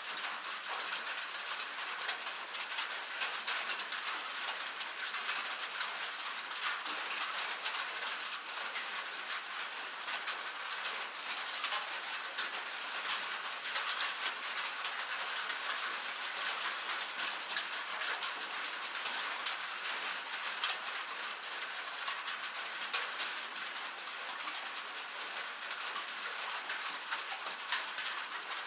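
Steady rain falling on a metal roof: a dense, unbroken run of small ticks from the drops, bright and thin with no deep rumble.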